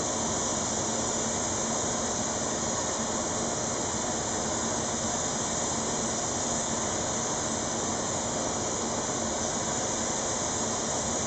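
Gravity-feed spray gun hissing steadily as compressed air atomises clear lacquer.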